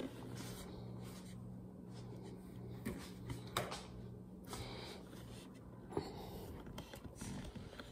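Faint rustling and scraping close to the camera, with a few light clicks, over a steady low hum.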